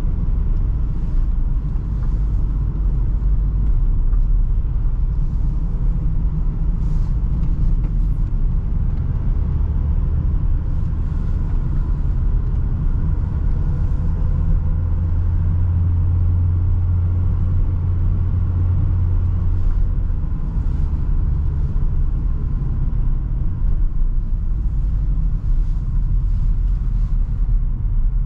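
Renault Trafic van driving, heard from inside the cab: a steady low rumble of engine and road noise. A deeper drone swells about a third of the way in and fades again about two-thirds through.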